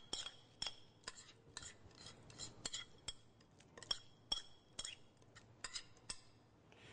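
A metal spoon clinking and scraping against a glass mixing bowl as a sticky granola mixture is scooped out into a casserole dish: a scattering of light irregular taps, a few of them ringing briefly.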